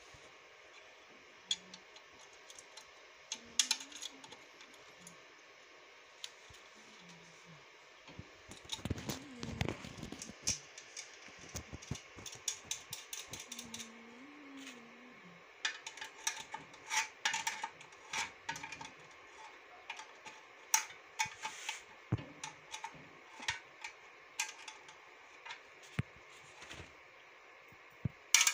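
Small metal parts clicking and clinking as screws and nuts are handled and fitted to a metal plate by hand, with a patch of rustling handling noise about nine seconds in.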